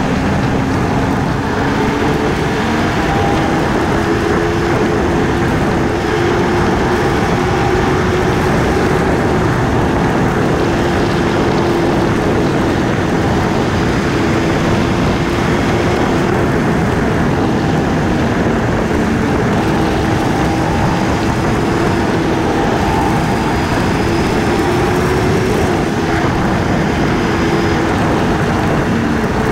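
KTM Duke 250's single-cylinder engine running at a steady cruise, its note rising and falling only slightly, under a dense rush of wind and road noise.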